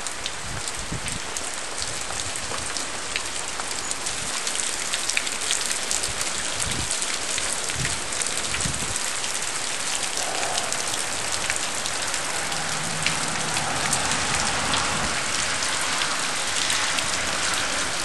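Steady pouring rain, with the ticks of single drops landing close by.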